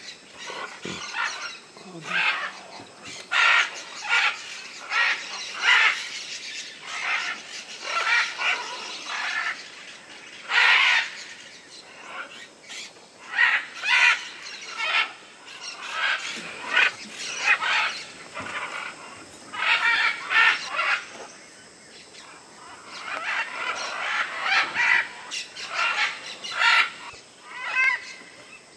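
A flock of parrots calling, one squawk after another, often overlapping, with a loud call every half second to a second.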